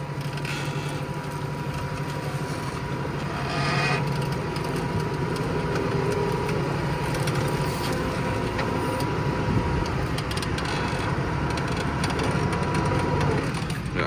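New Holland tractor engine pulling a reversible plough through soft, wet ground under heavy load, foot down: a steady drone with a thin steady whine over it that stops near the end, under a rough noise.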